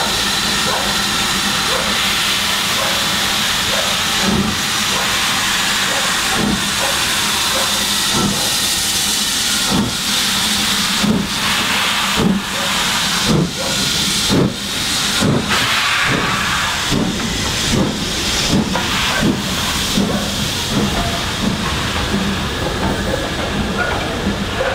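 BR Standard Class 4 2-6-4 tank steam locomotive hissing steam steadily from its cylinders as it rolls slowly past. A run of sharp knocks and clanks begins about four seconds in and comes faster in the middle.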